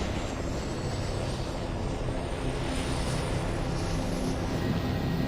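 Helicopter running: steady engine and rotor noise with a thin high whine that slowly rises in pitch.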